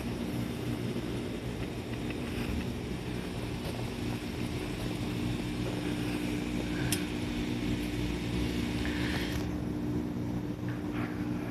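Fujikyu 6000 series electric train, a converted 205 series unit, standing with its onboard equipment humming steadily in several low tones. There is a single sharp click about seven seconds in.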